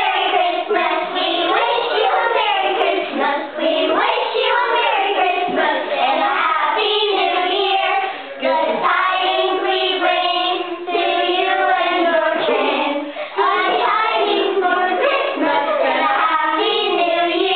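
A group of children singing a song together, with a few brief breaks between phrases.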